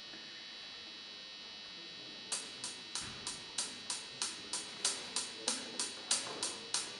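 Steady faint hum from a guitar amplifier for a couple of seconds, then a backing track's hi-hat counting in with evenly spaced ticks, about three a second, leading into the next song.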